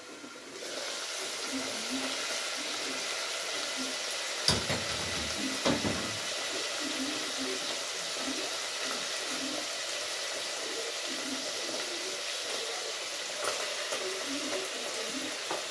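Food frying in oil in an uncovered pot, a steady sizzling hiss that swells as the lid comes off just under a second in. Two knocks come about four and a half and six seconds in.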